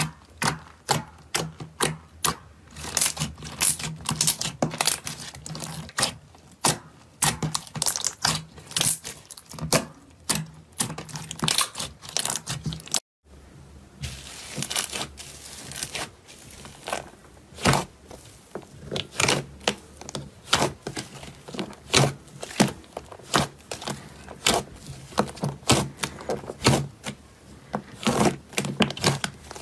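Slime being poked, pressed and squeezed by hand, giving dense, irregular crackling pops and clicks. It breaks off briefly about 13 s in, then a bubbly, foamy slime pressed flat and kneaded in a plastic tub gives the same rapid popping.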